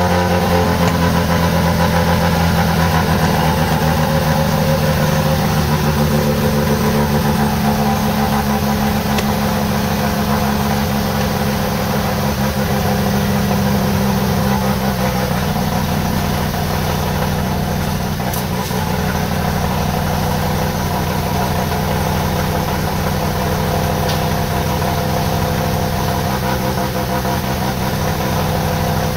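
Mazda RX-7 FD3S's newly installed 13B twin-turbo rotary engine idling steadily on its first start.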